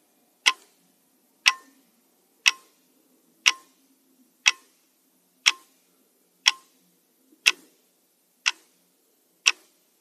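Pendulum clock ticking steadily, one sharp tick a second.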